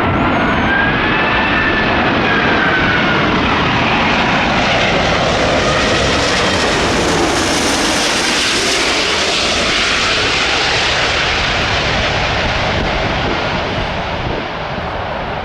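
Airbus A380's four jet engines as the airliner passes while landing: a whine that glides in pitch over a broad jet rush, building to a peak about halfway through and then fading.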